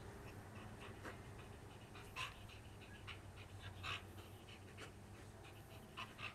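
Dog panting while tugging at a stick, with a few sharper, louder breaths about two, four and six seconds in.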